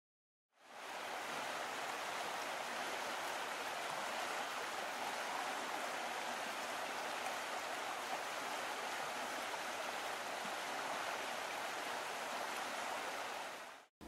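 Steady rushing water, like a stream, starting about half a second in and cutting off just before the end.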